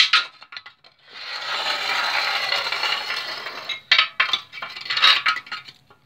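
A long metal rod scraping ash and soot build-up from inside a rocket pellet stove's tube: a few sharp clicks, then one long scrape starting about a second in, then a few metallic knocks near the end.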